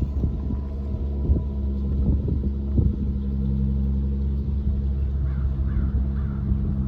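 Dodge Charger SXT's V6 through a Flowmaster Outlaw exhaust, running steadily at low revs, with a few small crackles in the first three seconds.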